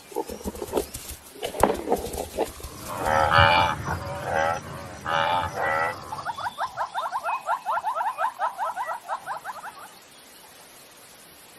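Cape buffalo clashing horns with a few sharp knocks, then two bouts of bellowing calls. A rapid trill of short rising chirps, about seven a second, follows for some four seconds.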